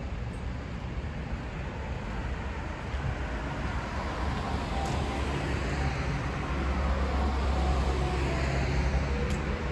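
City street traffic, with a vehicle's noise swelling from about three seconds in to a peak near the end, then easing off slightly.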